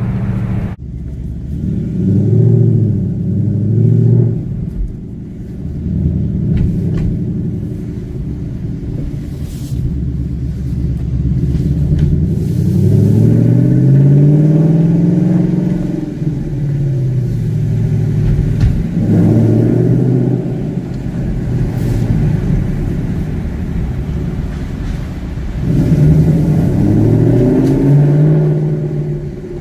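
2018 Ford Mustang GT's 5.0-litre V8 exhaust, rising and falling in pitch several times as the engine is revved and eased off, with a rumble in between.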